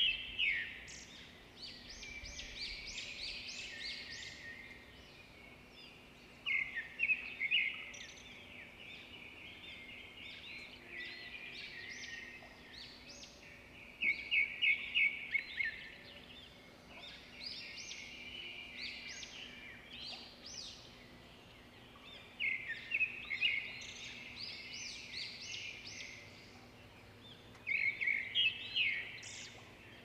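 Birds singing: a burst of rapid, loud notes about every seven or eight seconds, with quieter twittering in between.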